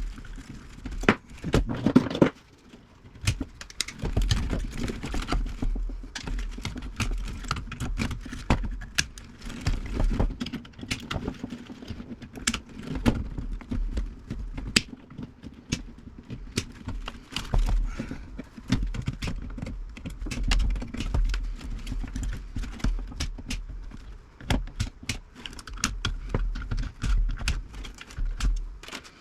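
Wires being snipped and metal parts clattering inside an old tube radio's chassis during scrapping: a long run of irregular sharp clicks and snaps with handling rattle.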